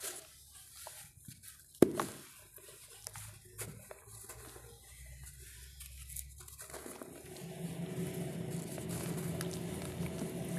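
Dry sand-and-cement chunks crumbling in bare hands into dusty powder: scattered gritty crunches and crackles, with one sharp snap a little under two seconds in. From about seven seconds it becomes a denser, continuous gritty grinding as the chunks are rubbed together and the powder sifted through the fingers.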